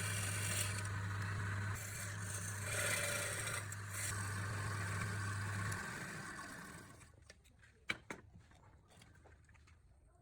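Wood lathe motor running with a steady hum and the scraping noise of the turning work, then switched off about six seconds in and running down to quiet. A few sharp knocks follow near the end.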